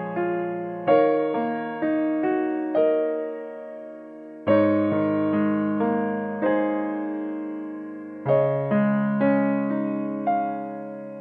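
Background piano music: struck chords and melody notes that ring and fade, with a new phrase beginning every few seconds.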